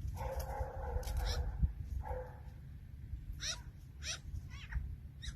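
Magpie calling: two harsh rasping squawks in the first half, the first about a second long, with short high rising squeaks scattered through.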